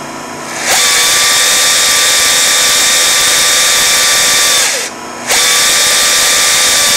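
Stanley hydraulic chainsaw run wide open twice, a steady high-pitched whine of motor and chain: once for about four seconds, then again after a short break. Each run drops in pitch as the saw spools down on release, with a lower steady hum underneath.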